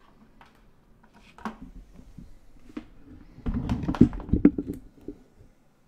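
Objects being shifted and set down on a desk: a few scattered taps, then a busy run of knocks and thuds about three and a half seconds in that stops about a second later.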